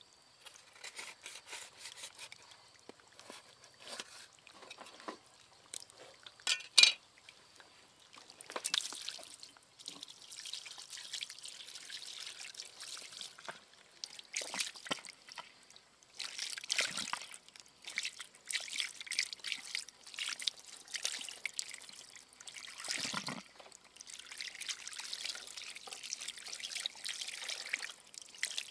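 Water splashing and trickling in irregular bursts, as if being scooped or sloshed by hand, with one sharp click about seven seconds in.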